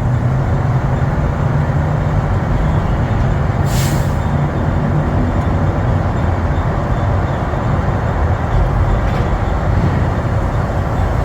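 An empty semi-trailer being towed at road speed, heard from inside the truck cab: a loud, steady racket that sounds like it's going to fall apart, over the truck's engine running. A short hiss of air comes about four seconds in.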